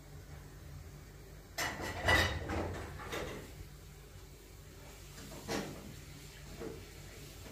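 Tea being drunk from a small glass: a handful of short, light clinks and sips, the loudest about two seconds in.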